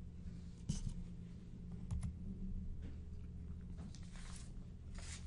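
A few faint, scattered clicks at a computer over a low steady hum.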